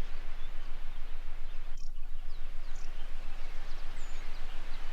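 Waterfall ambience: a steady rushing of falling water, with a few faint high bird chirps and a low steady hum underneath.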